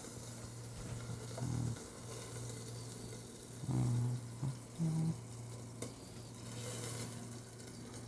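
Chicken roulade browning in oil in a lidded stainless pan, on an induction burner just turned down: a quiet, steady sizzle over a steady low hum. A few brief low knocks come about a second and a half in and again near the middle.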